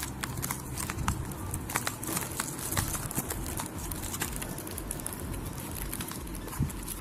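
Handling noise from a cardboard pen box and its clear plastic tray of sketch pens being moved and touched: scattered light clicks and crackles over a steady low background rumble.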